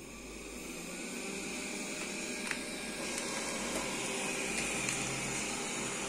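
Xiaomi robot vacuum's suction fan spinning up and running with a steady whirr, growing louder over the first few seconds, with a few light clicks as the robot moves off its dock. The fan motor in it has just been replaced.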